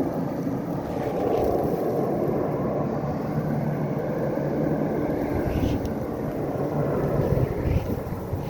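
Blizzard wind blowing steadily, with low gusty buffeting on the microphone.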